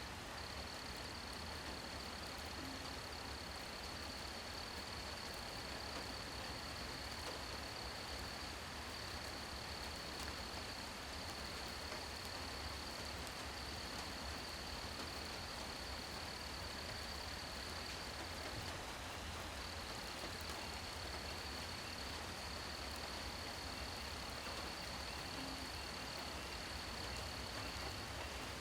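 Steady rain falling at night, an even hiss, with a continuous high-pitched insect drone over it that drops out briefly about two-thirds of the way through.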